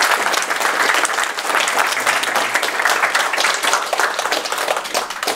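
Audience applauding: a dense, steady run of hand claps that stops abruptly at the very end.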